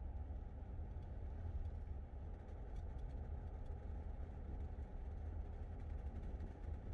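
Rolls-Royce car driving along a road at a steady speed: a steady low rumble of engine and road noise, heard from inside the car.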